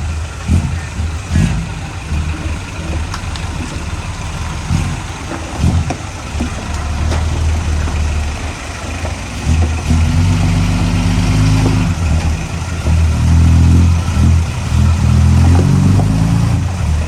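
Heavy diesel engine of earthmoving machinery working under load, its note rising and falling, louder and heavier from about ten seconds in and again near the end, with a few sharp knocks in the first seconds.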